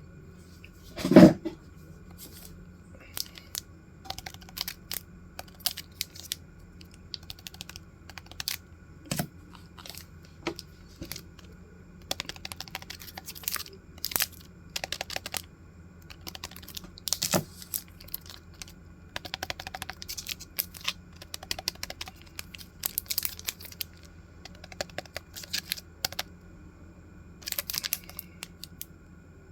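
Stationery and its packaging being handled and unpacked: scattered clicks and taps with bursts of rustling and tearing. There is one loud knock about a second in.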